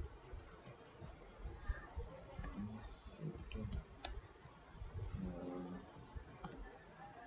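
Faint, irregular clicks of a computer keyboard as a short word is typed.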